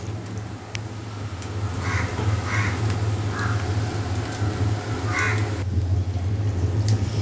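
Crows cawing several times, short separate calls over a steady low hum.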